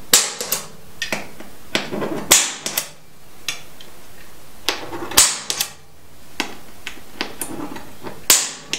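A hand-held punch pressed through the anchor nest's bolt holes, snapping down onto aluminium diamond plate to mark the hole positions. There are four sharp snaps, about two to three seconds apart, with lighter clicks and scraping between them as the punch is moved from hole to hole.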